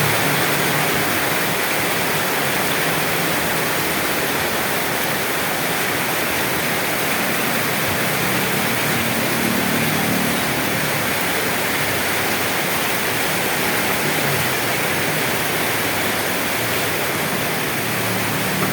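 Steady rain falling, an even hiss with no breaks. A faint low rumble swells and fades about halfway through.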